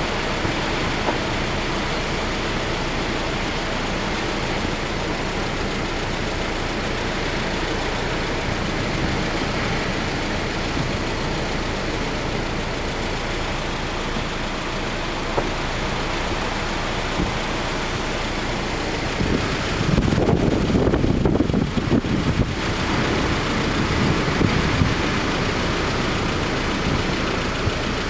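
Typhoon wind and surf on the coast: a steady, even noise, with heavy gusts buffeting the microphone from about 20 s in for several seconds.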